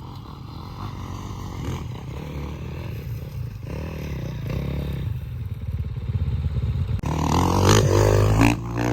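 Dirt bike engine revving as the bike rides, growing louder and loudest about seven to eight and a half seconds in, then dropping off.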